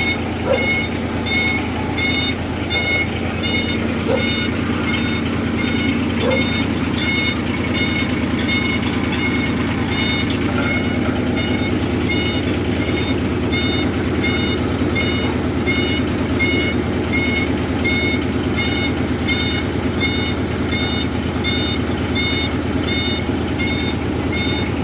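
Heavy diesel machinery running steadily while an electronic backup alarm beeps about once a second, the heavy equipment at work loading a road roller onto a low-bed tractor-trailer.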